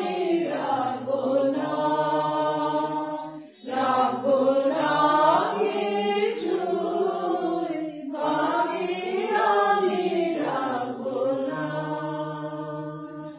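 A group of women singing a song together, in long phrases of about four seconds with a short breath between them.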